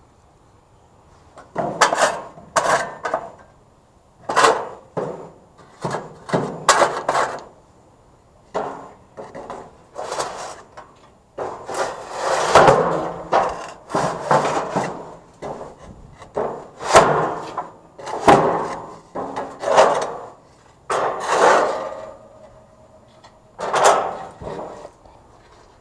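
Barbecue grill being scraped clean: irregular rough scraping strokes, each under a second, with short pauses between them.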